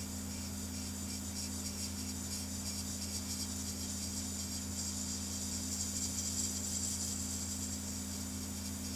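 Airbrush spraying: a steady hiss of air and paint that swells slightly about five seconds in, over a constant low hum.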